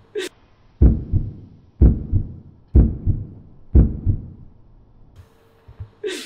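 A heartbeat suspense sound effect: four heavy, deep double thumps, about one a second, each a strong beat followed by a softer one. A short swish comes just before the first beat and another near the end.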